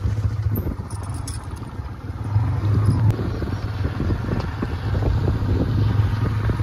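Motorcycle running along at steady speed, its low engine hum mixed with wind rumble on the microphone, a little louder from about two seconds in.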